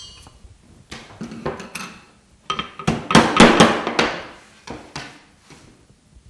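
A metal organ-pipe mandrel clinks with a short ring as it is lifted from a rack of mandrels. Then come a run of knocks and rattles as the mandrel is laid on a wooden bench and a soft tin-lead sheet is pressed and rolled around it, densest about three to four seconds in.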